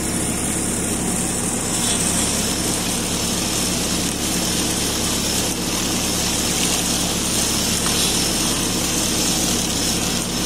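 Tractor engine running steadily while it drives a mounted rotary orchard weeder through the tree row, with a steady high hiss over the engine note.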